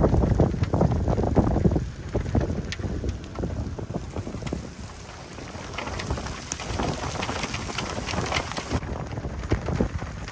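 Wind buffeting the microphone, loudest in the first two seconds, then easing, while rain falls with scattered drops ticking.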